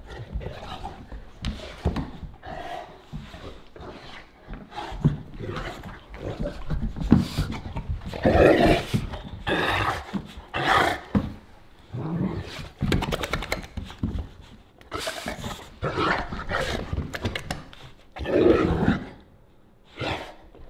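A Cane Corso and a puppy play-fighting: bursts of growling and snarling mixed with knocks of bodies and paws on a hardwood floor, with the louder growls coming in the second half.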